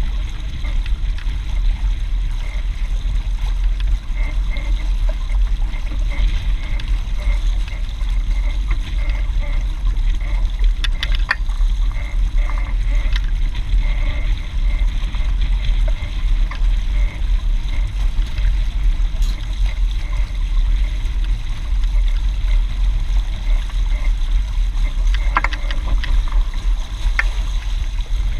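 Wind buffeting the microphone with a steady low rumble, over water rushing and gurgling along a Hobie 16 catamaran's hull as it sails. A few brief knocks or clicks stand out near the middle and again near the end.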